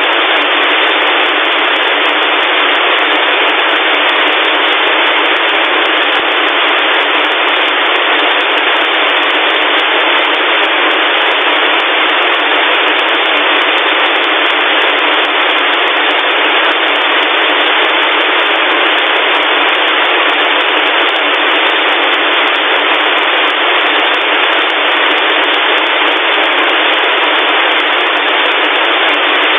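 Steady, loud static hiss filling the place of the spoken message in a mock Emergency Alert System test. It is thin, with no bass or treble, like static through a radio speaker.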